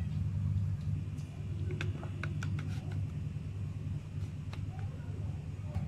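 Metal serving spoon clicking and scraping against the pan and the plastic container as pieces of cooked liver are scooped across, with a cluster of light clicks about two seconds in and one more later, over a steady low hum.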